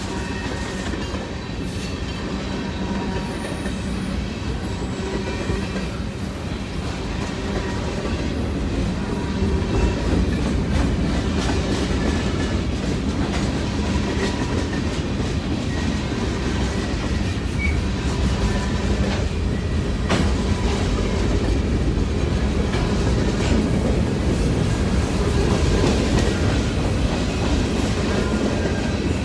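CSX freight train's tank cars and covered hoppers rolling past: a steady rumble of steel wheels on rail, with repeated clicks as the wheels cross rail joints and a faint high wheel squeal. It grows louder about nine seconds in.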